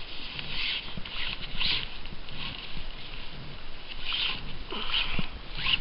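Lightweight nylon sail cloth rustling and crinkling in short, irregular bursts as a fiberglass sail pole is fed into the sail's sleeve.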